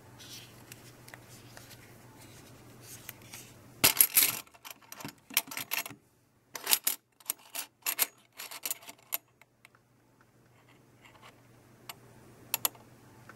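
Loose metal coins and a plastic coin capsule clinking and clicking against one another in a plastic tub: a quick run of sharp clinks from about four to nine seconds in, then two more near the end.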